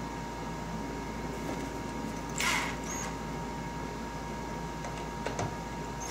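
Work noise while a plastic body panel is being screwed in place: a brief rasping burst about two and a half seconds in and a sharp click near the end, over a steady background hiss.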